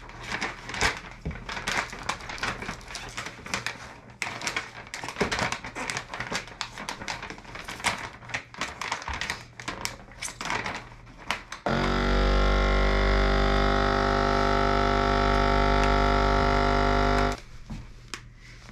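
Plastic vacuum-seal bags crinkling and clicking as they are handled and loaded, then about twelve seconds in a FoodSaver vacuum sealer's pump starts, runs with a loud steady hum for about six seconds drawing the air out of the bag, and stops abruptly.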